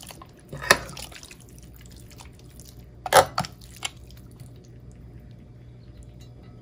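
A few sharp clicks and taps, the loudest about three seconds in: metal tongs knocking against the wire rack and glass bowl of a countertop oven as marinated pork ribs are laid on the rack. A faint low hum lies underneath.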